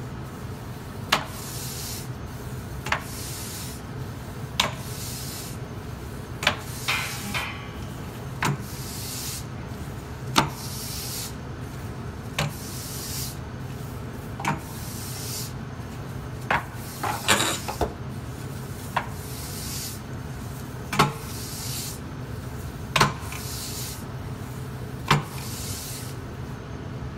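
Oven brush sweeping the floor of a deck oven in scraping strokes about once a second, with a sharp knock every two seconds or so. A steady low hum runs underneath.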